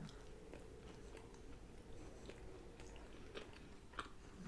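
Quiet chewing of food, with faint scattered mouth clicks.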